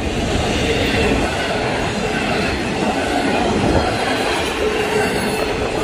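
Freight train passing at speed, a cut of empty intermodal cars: a steady rumble and rattle of steel wheels on the rails, with a faint high ring over it.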